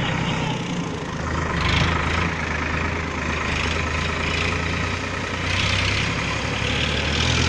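A steady low engine drone, like an idling motor, under a hiss that rises and falls a little.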